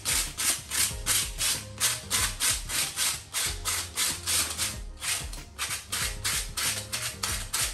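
Hand-held abrasive pad scrubbing a spalled concrete ceiling in quick back-and-forth strokes, about four a second, rasping off rust and loose dirt around the exposed reinforcing bar.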